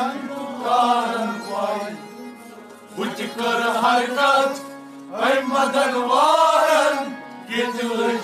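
Men singing a Kashmiri Sufi song in phrases of a second or two with short breaks, over a harmonium holding steady notes.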